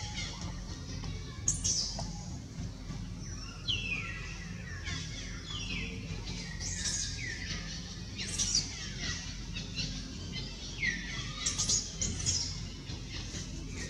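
Infant macaque crying: repeated high-pitched cries, each sliding down in pitch, coming irregularly every second or two.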